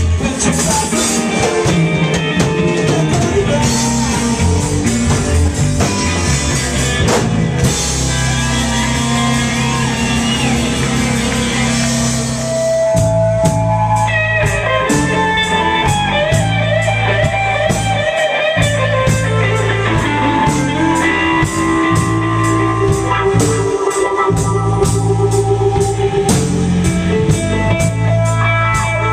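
Live blues-rock band playing loud: electric guitar, bass guitar and drum kit. About halfway through the band thins out and the electric guitar takes a lead with bent notes over the bass and steady drum beat.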